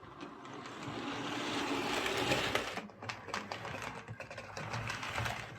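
Hornby Class A1 OO gauge model locomotive running on track: small electric motor whirring with wheel and track clicks, building up then dropping away sharply about three seconds in before picking up again unevenly. The running is lumpy and stalls, which the modeller takes to suggest an electrical pickup contact issue, though it could also be mechanical.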